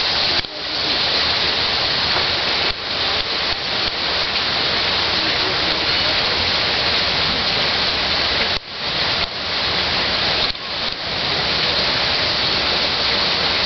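Steady loud rushing noise, broken several times by sudden brief drops in level.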